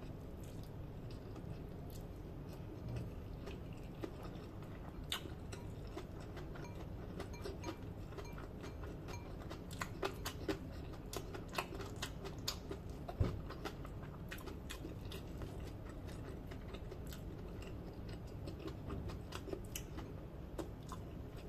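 Close-up chewing of fried rice eaten by hand: soft wet mouth sounds and irregular small clicks and smacks, busiest about halfway through, with fingers working the rice in a plastic bowl, over a steady low hum.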